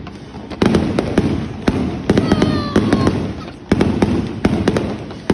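Fireworks going off: an irregular run of sharp bangs and cracks, a dozen or so in about five seconds.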